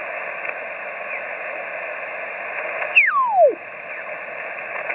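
Yaesu FT-817ND transceiver receiving in upper sideband while being tuned up the 10-meter band: steady band hiss. About three seconds in, a loud whistle falls quickly in pitch as the dial sweeps across a signal.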